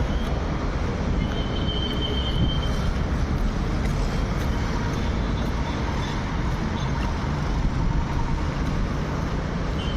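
Steady road traffic noise from passing vehicles, a continuous even rumble.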